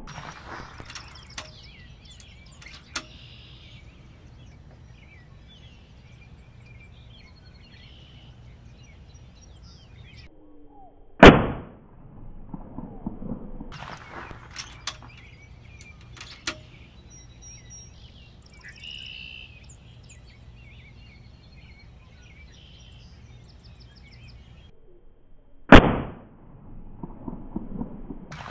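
Two shots from an FX Impact PCP air rifle, each a sharp crack, about fourteen seconds apart. Quieter handling clicks and rustling come between the shots, and birds chirp faintly.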